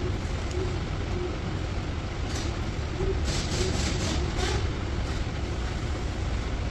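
A steady low mechanical rumble, with a cluster of short scraping sounds from about three to four and a half seconds in.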